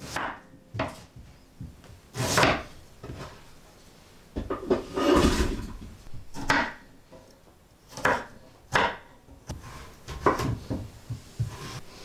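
A white ceramic kitchen knife chopping onion and garlic on a round wooden cutting board: separate knocks of the blade through the vegetable onto the wood, about a second or two apart, with a longer rough scraping sound about five seconds in.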